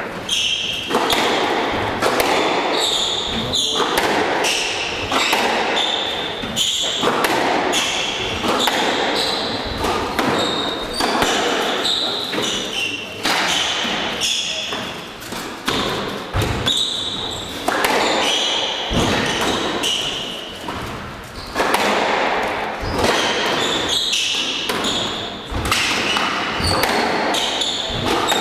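Squash rally: the ball cracking off rackets and the court walls about once a second, ringing in the enclosed court, with players' shoes squeaking on the hardwood floor between shots.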